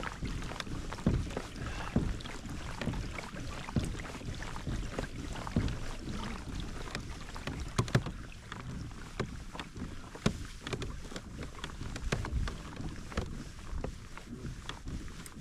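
Water lapping and knocking against a small boat's hull, with wind rumbling on the microphone and many scattered light clicks and knocks.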